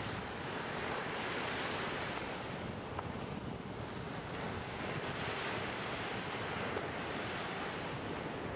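Sea surf breaking and washing up a sand beach, a steady rush that swells and eases with the waves, with wind buffeting the microphone.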